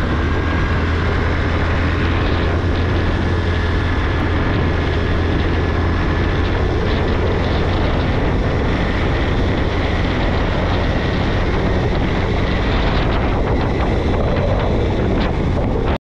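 A moving road vehicle running at a steady speed: an even engine hum with wind and road noise.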